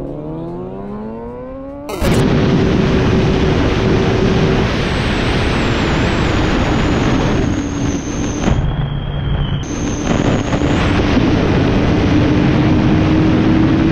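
Kawasaki ZX6R inline-four sportbike accelerating hard, its engine note climbing steadily. About two seconds in it cuts to loud, rough wind rush buffeting the microphone of a motorcycle ridden at around 140 mph, with a steady engine drone underneath.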